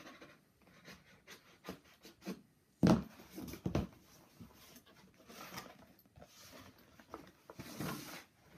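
Cardboard subscription box being handled and opened by hand: scratching and rubbing on the cardboard, two sharp knocks about three seconds in, and rustling as the lid comes open near the end.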